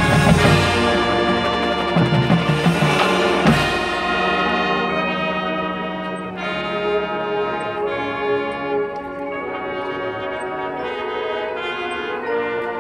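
Marching band playing, with brass and percussion together. Several drum hits and a sharp accent about three and a half seconds in give way to held brass chords, a little softer.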